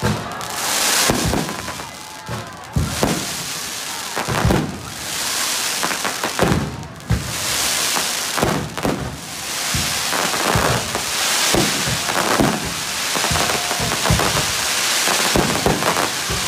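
Aerial fireworks going off in a dense barrage: shell bursts booming irregularly, about one or two a second, over a continuous hiss and crackle of sparks.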